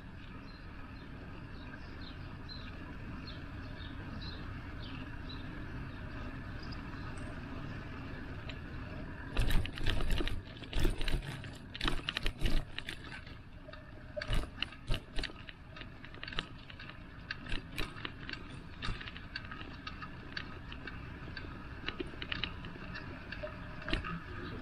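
Steady wind and road noise from a bicycle ride. From about ten seconds in there is a run of sharp rattles and knocks as the bike jolts over the road.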